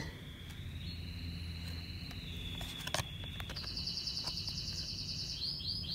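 Pet canaries singing: long, steady high trills, joined by a higher trill partway through and a run of quick repeated notes near the end.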